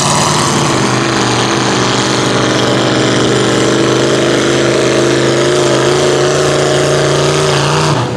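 302 V8 with headers and stacks, in a Mustang-bodied mud truck on tractor tires, running hard as it churns through mud. The engine note holds steady with its pitch creeping slowly upward.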